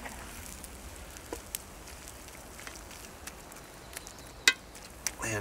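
Wood campfire crackling: scattered sharp pops over a faint steady hiss, with one louder pop about four and a half seconds in.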